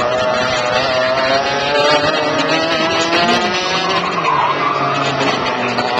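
Several racing kart engines running together at different pitches, each rising and falling as the karts accelerate and lift through the corners.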